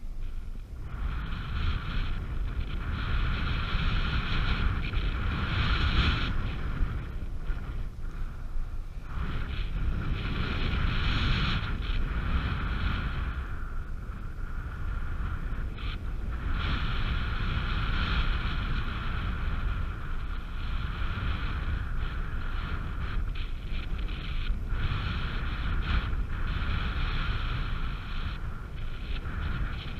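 Airflow buffeting the microphone of a paraglider climbing in a thermal. Over it a paragliding variometer's electronic climb tone sounds in long stretches of several seconds, with short breaks between them.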